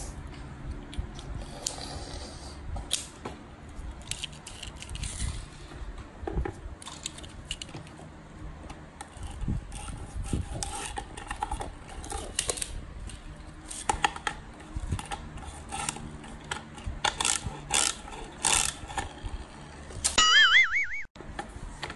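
Small plastic toy cars handled and set down on a wooden board: scattered clicks, knocks and light clatter. Near the end, a short wavering electronic tone sounds, then the sound cuts off suddenly.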